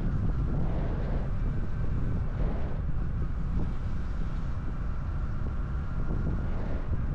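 Honda 125 cc Cub motorcycle's single-cylinder four-stroke engine and exhaust running steadily while riding, with wind noise on the microphone.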